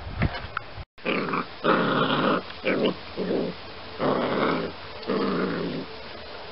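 Two-month-old puppy growling in play while chewing and tugging at a stick: a string of about six short, rough growls starting about a second in.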